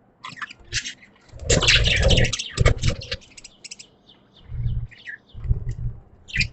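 Pet budgies chirping and chattering in quick bursts of high, scratchy warbles, busiest about one and a half seconds in. Low thumps come with some of the bursts.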